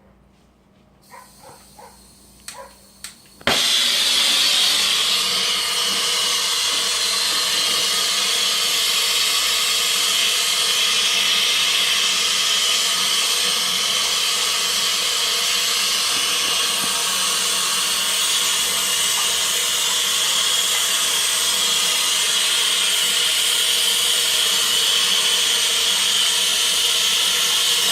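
A soldering torch lit about three and a half seconds in, after a few small clicks, then burning with a loud, steady hiss while a shower valve's copper joints are heated for soldering.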